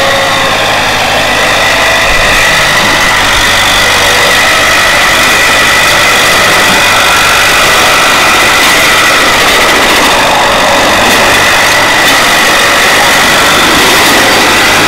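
Ford 5610 farm tractor's diesel engine running steadily and loud, close by, with a steady high whine over it.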